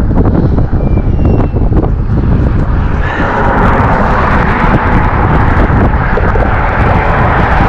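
Wind buffeting the microphone, with road traffic noise from the bridge swelling in from about three seconds in and holding steady.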